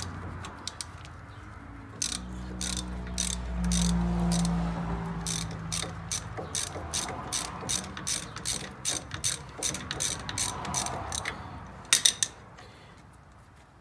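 Ratchet wrench clicking steadily as it is swung back and forth to loosen a rear brake caliper bolt, with a few louder clicks near the end. A low rumble sits under the clicking for a few seconds early in the run.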